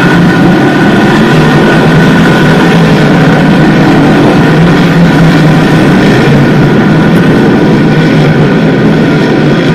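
Small-block V8 engines of dirt-track modified race cars racing past in a pack, a loud continuous drone of several engines overlapping.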